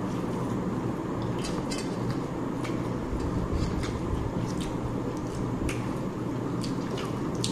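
Eating sounds: irregular short, wet clicks and smacks of chewing and handling food, over a steady background hum.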